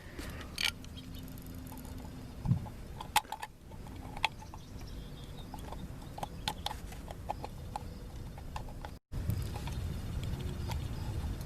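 Scattered light clicks and taps of small parts being handled as a lock cylinder retaining clip is slid into a truck door handle, over a low steady background hum. The sound drops out for a moment about nine seconds in.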